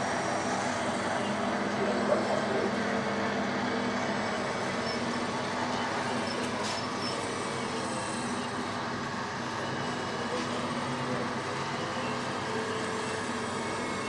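Radio-controlled Liebherr 944 model hydraulic excavator working as it digs and swings its bucket: a steady hum of pump and motors with several steady tones, and a brief sharp knock about two seconds in.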